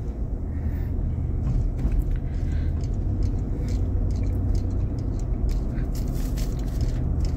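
A car driving slowly, its engine and tyres making a steady low rumble heard from inside the cabin, with scattered small clicks and ticks over it.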